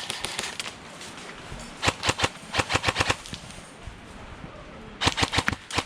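Airsoft rifles firing in quick bursts of sharp clacks: one short burst about two seconds in, a longer one just after, and another near the end.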